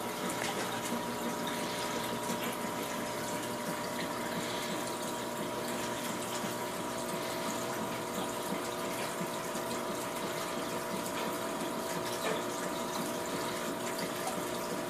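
Aquarium filter running: a steady rush and trickle of water with a steady pump hum underneath.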